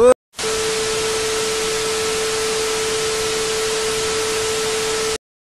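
TV static transition effect: a steady hiss of white noise with a steady mid-pitched tone beneath it, cutting off abruptly after about five seconds. A brief rising sound is cut short at the very start, just before the hiss begins.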